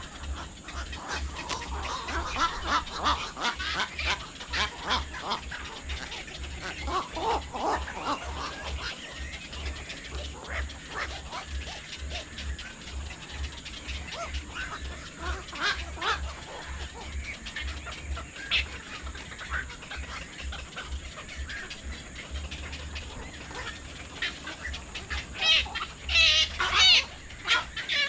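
Birds calling: a busy mix of short calls throughout, with a rapid run of higher-pitched calls near the end.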